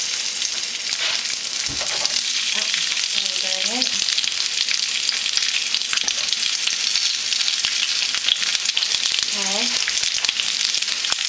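Onion chunks sizzling and crackling steadily in hot oil in a steel wok, as pieces are added by hand. A single knock sounds about two seconds in.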